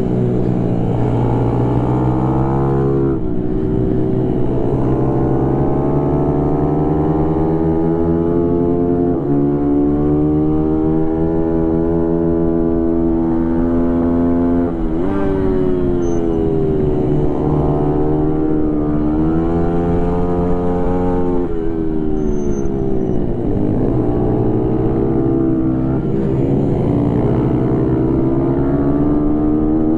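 Mini racing motorcycle's engine heard from on the bike, running hard: the revs climb along the straights and fall away sharply into the corners, about five times.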